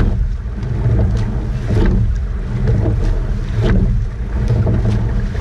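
Rowing eight under way at race pace: wind rumbling on the boat-mounted camera's microphone over water rushing past the hull, with a sharp clack from the oars in their oarlocks at each stroke, about every two seconds.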